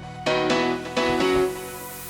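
Background music: plucked guitar-like notes in a steady rhythm.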